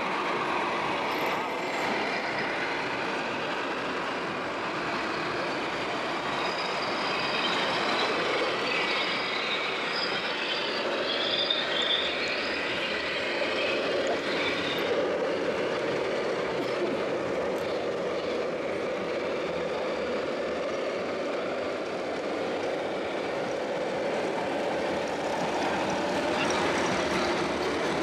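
Radio-controlled scale model trucks and construction machines driving on a dirt course: a steady mix of small motor and gear noise, with the murmur of a hall full of people behind it.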